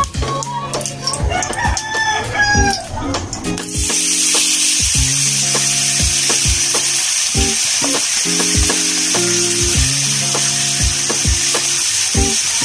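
Diced ham hitting hot cooking oil in a frying pan: the oil starts sizzling suddenly about four seconds in and keeps sizzling steadily as the ham is stirred.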